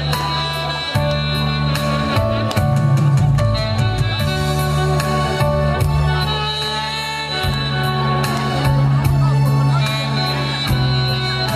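Saxophone playing a melody live over a recorded backing track with a steady drum beat and bass, amplified through the stage sound system.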